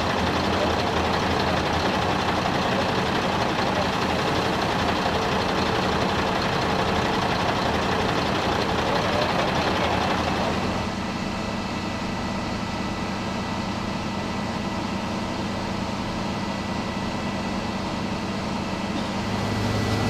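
A fire engine's engine running steadily at the scene. About halfway through it changes to a slightly quieter, even hum with a faint high steady tone.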